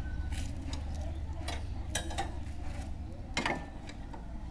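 Hand tools clinking and tapping on a Royal Enfield Bullet motorcycle as a mechanic works on it for a puncture repair: irregular small metallic clicks and knocks over a low steady rumble.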